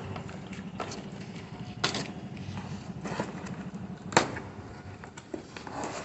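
Sharp clicks and knocks of a laptop box and its packaging being handled, two louder ones about two and four seconds in, over a steady low hum.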